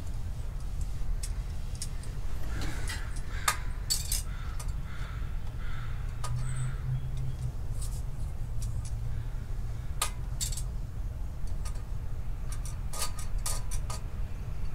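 Scattered light metallic clicks and clinks of small tools and parts being handled, over a steady low hum.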